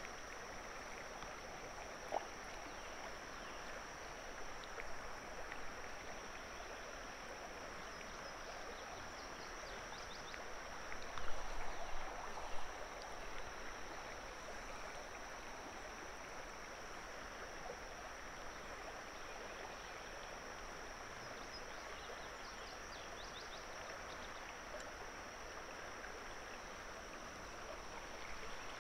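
River water flowing steadily over a gravel shallows, with a thin, steady high-pitched tone. A few brief knocks come about eleven to thirteen seconds in.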